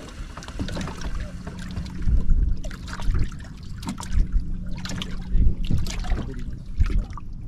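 Choppy lake water lapping and slapping against a fishing boat's hull, with wind gusting on the microphone. A steady low hum runs underneath from about a second in until near the end.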